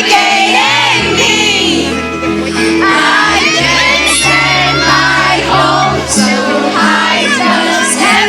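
Live pop ballad from a PA: a female singer with held low keyboard and bass chords, and many fan voices singing along.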